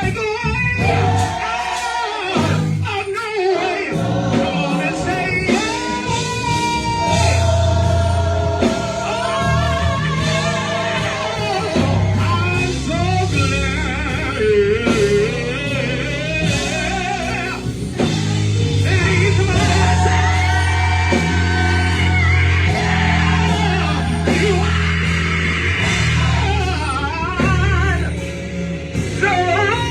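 Gospel choir singing long held notes with a live band, over a steady bass line and drums.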